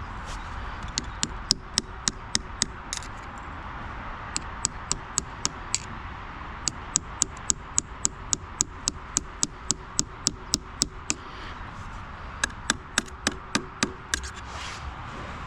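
Runs of sharp metallic taps, about two or three a second with short pauses between runs: an old butter knife set in the castellations of a mountain bike crank's castle nut being tapped round to tighten the nut, which had worked loose, as an improvised fix without the proper castle nut tool.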